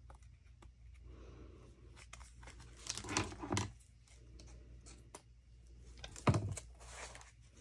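Paper and envelopes rustling and crinkling as a yarn-tied stack of handmade envelopes is untied and handled, with one dull knock a little after six seconds in.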